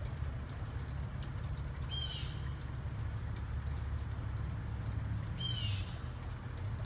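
A bird calling twice, about three and a half seconds apart, each a short harsh call, over a steady low rumble.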